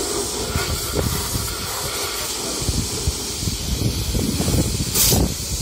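Steady hiss of a car-wash high-pressure washer spraying water, with a brief louder rush about five seconds in.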